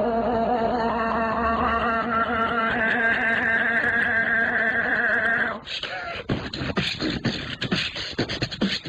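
A woman beatboxing into a webcam microphone. She first holds a long vocal tone that steps up in pitch partway through. About five and a half seconds in it breaks off into fast percussive mouth clicks and beats.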